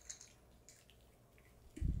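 Small dogs chewing treats, a few faint crunchy clicks in the first second, then a dull thump near the end.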